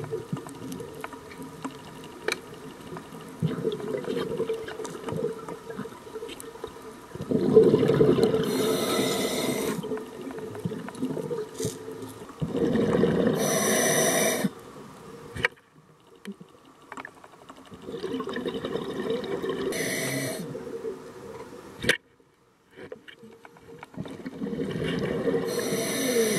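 Scuba diver breathing through a regulator underwater: four breath cycles, each a swell of gurgling exhaled bubbles with a hiss of air through the regulator, roughly every five to six seconds, with quieter pauses between.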